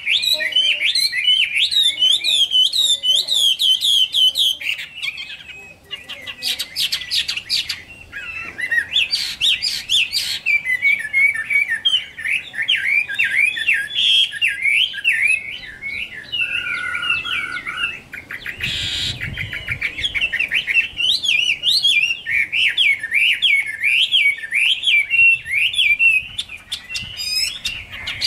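Caged Chinese hwamei singing loudly: a rapid, nearly unbroken stream of varied slurred whistles. A run of sharp clicks comes around six seconds in, and a brief noisy burst around nineteen seconds.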